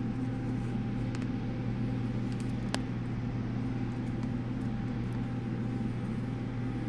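Steady low electrical or mechanical hum at an even level, with a faint click or two.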